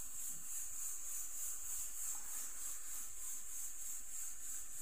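A steady high-pitched hiss of background noise, with no distinct sound events.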